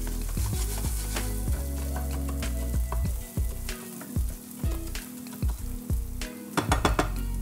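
Arborio rice and chopped onion sizzling in oil in a frying pan. A wooden spatula stirs them, scraping and tapping the pan, with a quick run of taps near the end. The rice is being toasted in the fat before the wine goes in.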